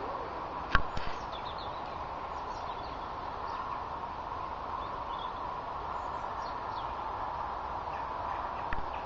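A pony's hooves knocking a few times about a second in, over steady outdoor background noise with faint high chirps.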